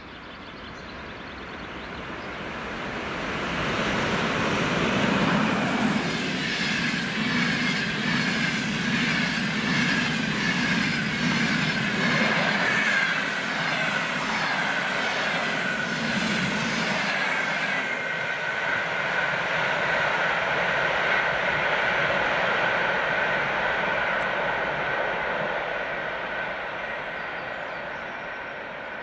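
EP20 electric locomotive and its passenger coaches passing at speed. The sound builds over the first few seconds, then runs as a rhythmic clatter of wheels over rail joints with a high whine that slowly falls in pitch, and fades near the end.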